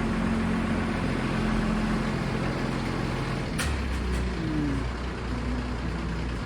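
Diesel engine of heavy road-paving machinery running steadily, its low hum growing stronger about three and a half seconds in, with one sharp clank at that moment.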